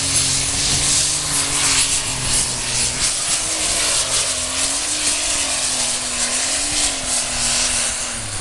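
Super Stock pulling tractor's turbocharged diesel engine running at full power as it drags the weight-transfer sled down the track. The engine note wavers up and down under a loud hiss.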